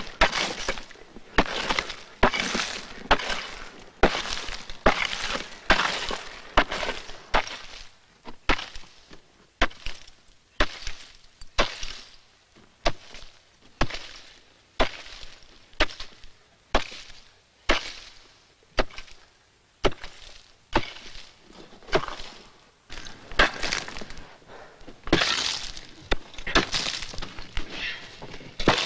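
An axe chopping into glacier ice in a steady rhythm, about one blow a second, each a sharp crack often followed by a brief crunch of splintering ice, as blocks are hewn from the glacier face. The blows are lighter through the middle and heavier again near the end.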